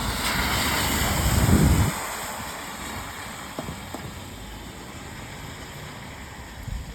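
A car passing on a wet road, its tyres hissing and splashing through puddles, loudest about a second and a half in and fading out by two seconds. Steady rain hiss carries on after it.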